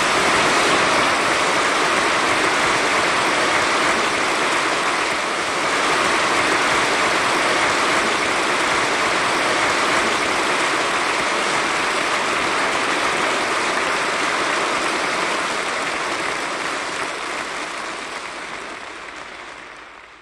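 Concert audience applauding, a dense even clapping that fades out over the last few seconds.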